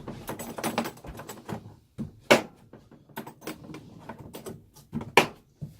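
Handling of a blow-moulded plastic tool case: rattling, clicks and knocks as the case and its lid are moved, with two sharp loud knocks, about two seconds in and near the end.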